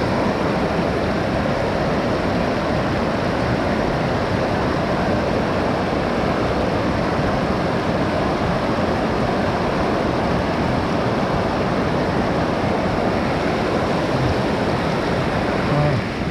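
Steady rushing of a mountain stream's water, loud and even, with a waterfall close by.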